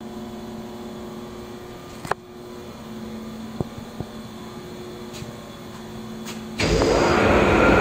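Industrial machinery hum with a few sharp clicks, then about six and a half seconds in a Ross HDM 200 planetary mixer's 40 hp drive starts up, with a sudden, much louder mechanical running noise that carries on.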